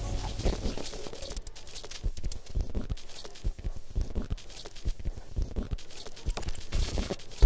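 Sparse glitch-electronic music: irregular clicks, crackles and scratchy noise over a faint low rumble, with no melody or chords.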